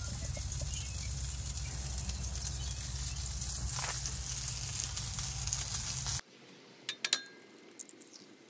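A portable campfire burning with a steady hiss, with wind rumbling on the microphone; it cuts off suddenly about six seconds in.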